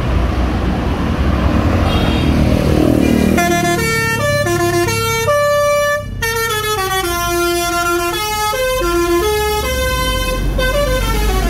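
A bus's telolet horn playing a melody of quickly changing notes for about eight seconds, starting about three seconds in, over the low running of the bus's diesel engine.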